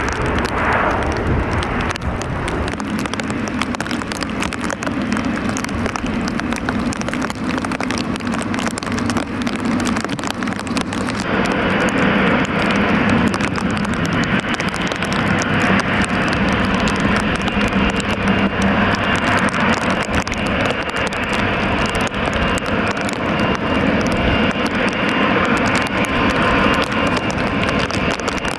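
Boeing 707 jet engines running loud and steady. About eleven seconds in, the sound grows brighter and slightly louder and holds there.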